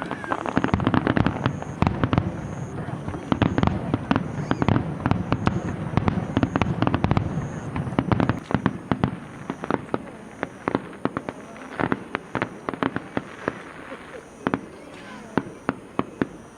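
Fireworks display: a dense barrage of bangs and low booms, giving way after about eight seconds to rapid, scattered crackling pops.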